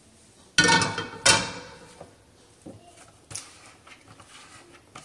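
A metal frying pan set down on a gas stove's metal grate: two loud clanks with ringing, a little under a second in and about half a second apart. Then a few soft clicks and knocks from handling a plastic oil bottle and its cap.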